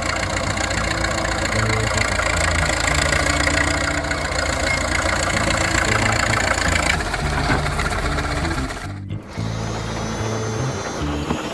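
Background music with a stepping bass line. For about the first seven seconds a loud, even noise lies over it, then cuts off.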